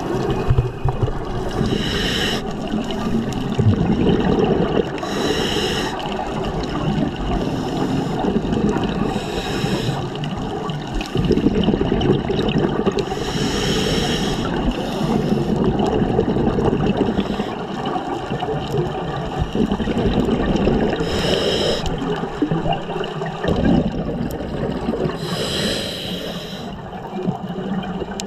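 Scuba regulator breathing heard underwater: a short hissing inhale every few seconds, with a low bubbling rumble of exhaled bubbles between them.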